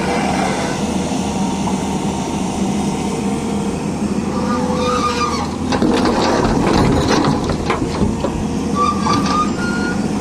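Excavator's diesel engine running steadily under load. About six seconds in, a couple of seconds of knocking and clattering sounds out, the kind made as a bucket of mud and stone is dumped into a dump truck's steel bed.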